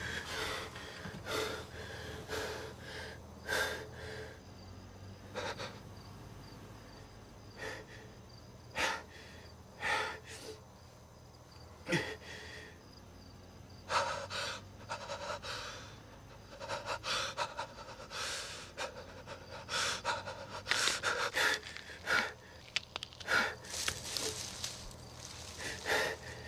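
A man breathing in short, irregular breaths that come closer together in the second half, over a low steady hum.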